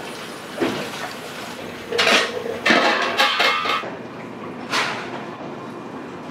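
Kitchen dishes and metal utensils clattering and clinking against a steel sink: a knock under a second in, a busy run of clanks from about two to four seconds, and one more near five seconds, over a steady kitchen hum.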